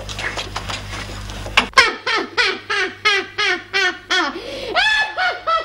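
A woman's loud, rhythmic cackling laugh, a quick run of 'ha' syllables about three a second, each falling in pitch, starting about two seconds in; it is the wild laugh of a character played as mad. Before it, shuffling over a low hum.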